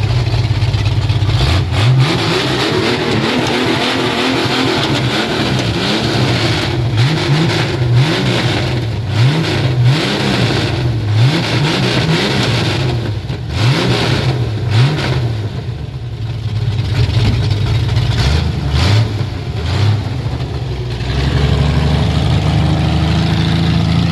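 Vehicle engine idling, then revved again and again in quick blips, the pitch rising and falling about once a second, before settling back to a steady idle near the end.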